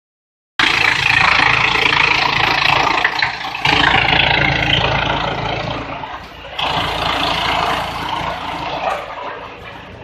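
Industrial wood chipper running and chipping wood: a loud, dense rushing clatter over a steady machine hum. It starts abruptly about half a second in, jumps in level twice, and eases down toward the end.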